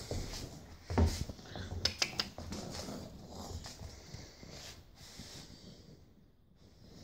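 British bulldog puppy scuffling at a person's feet on a laminate floor, with a thump about a second in and a few sharp clicks around two seconds in; the noise dies down to near silence near the end.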